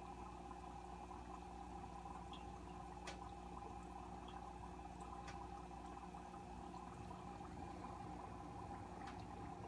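Aquarium water circulating with a steady low hum and a light trickle, with a few faint ticks about three, five and nine seconds in.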